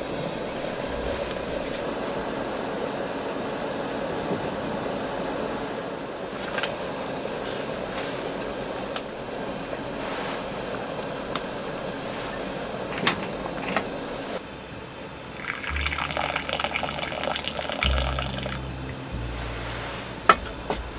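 Water in a stovetop kettle heating on a stove, a steady rushing, watery noise that fades out about fourteen seconds in. Background music with a stepping bass line comes in shortly after.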